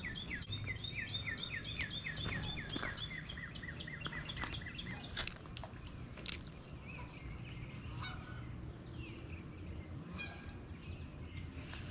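A bird calling in a fast series of short, falling notes, about five a second, that stops about three seconds in. A few sharp clicks and a faint steady background follow.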